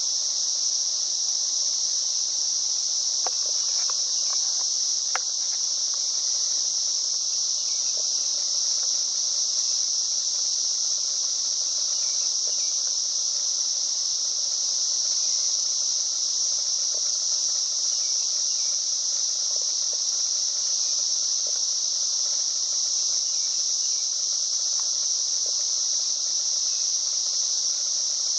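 A steady insect chorus, an even high-pitched buzz that doesn't let up, with a few faint ticks under it.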